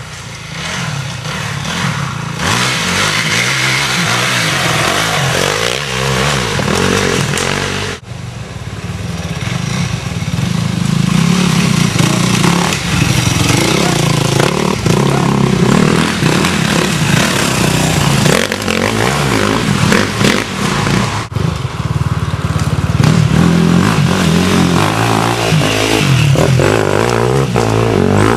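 Enduro dirt bike engines revving hard as the bikes are ridden along a rough trail, the engine note rising and falling with the throttle. The sound breaks off abruptly and starts again about 8 and 21 seconds in.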